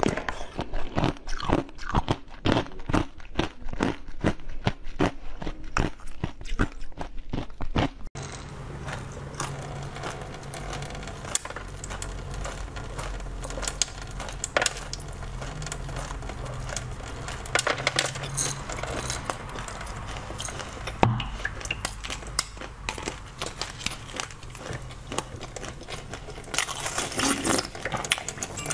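Strawberries frozen in ice being bitten and chewed, a rapid run of sharp icy crunches for about the first eight seconds. After that come quieter mouth sounds and scattered clicks over a low steady hum, with a stretch of hiss near the end.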